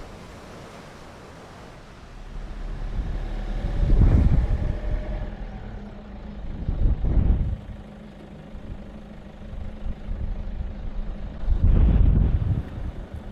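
Toyota Fortuner driving, with a steady low engine drone. Three loud, deep rumbling swells come over it, about four seconds in, in the middle and near the end.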